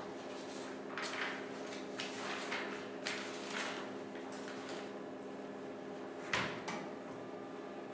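Scattered rustling and handling sounds, with a sharp knock about six seconds in, over a steady low hum.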